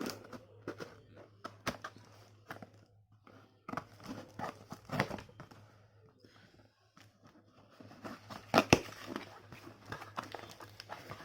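Cutting and tearing open a tape-sealed cardboard parcel: irregular scraping, tearing and crinkling with scattered sharp snaps, the loudest a little over 8.5 s in. A faint steady low hum runs underneath.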